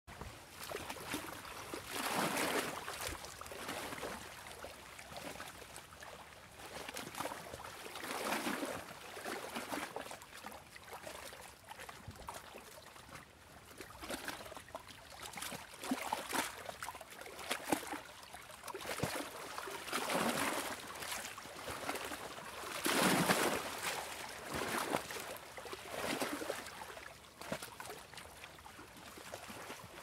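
Small waves washing onto a beach shore. Each wash is a hiss that swells and fades, coming every few seconds, with the loudest surge about three-quarters of the way through.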